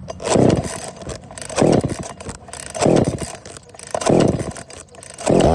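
Husqvarna 142 two-stroke chainsaw pull-started on choke: four pulls of the recoil starter about a second apart, then near the end the engine fires and keeps running.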